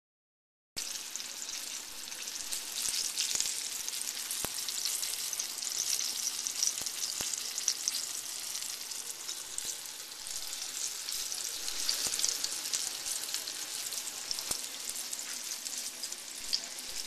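Chicken fried steak frying in oil in a cast-iron skillet: a steady, dense sizzle with many small pops, starting about a second in.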